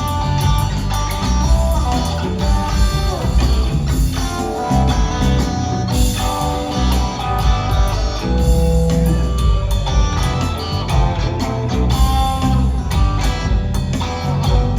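A live rock trio playing an instrumental jam: electric guitar lines over bass guitar and drum kit, recorded on a phone.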